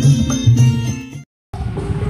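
Loud music played through a large outdoor sound-system speaker stack, with pitched melodic notes over heavy bass. It breaks off a little over a second in, and after a brief silence a different piece with heavy bass starts.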